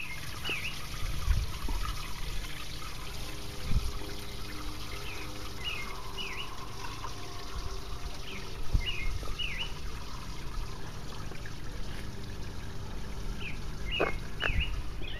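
Small garden-pond fountain splashing and trickling steadily, with a bird repeating a short chirped phrase every few seconds. A few low bumps stand out.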